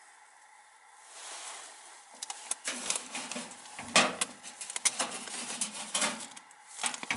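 Soapstone carving being handled on a shelf: after a quiet second, a run of irregular small clicks, knocks and rubbing as the stone monkey figure is gripped and turned, with one sharper knock about four seconds in.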